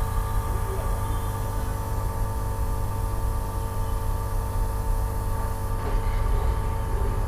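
Hot-air gun blowing steadily, a constant rumble with a steady whine, heating the phone's back glass to soften its adhesive.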